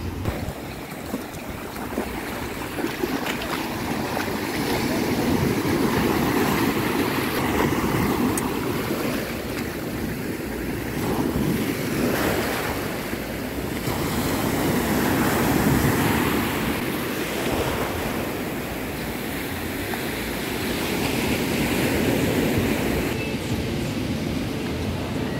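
Ocean surf breaking on a sandy beach, the wash swelling and fading every few seconds.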